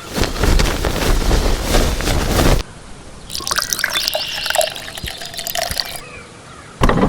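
Liquid sounds, splashing and dripping, in short segments that start and stop abruptly: a loud stretch for the first two and a half seconds, quieter clicks and short chirps in the middle, and a loud stretch again near the end.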